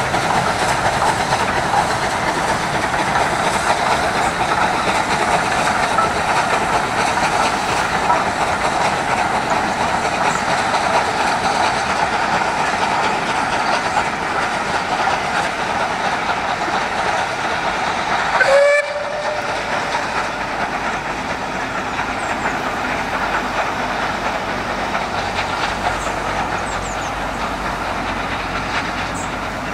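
Steam locomotive under steam hauling a passenger train past, with a steady rush of exhaust and train running noise. About two-thirds of the way through comes one short whistle toot, followed by a brief break in the sound.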